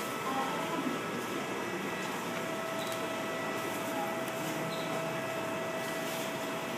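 Steady machine hum with faint steady whining tones, one of them coming in about two seconds in.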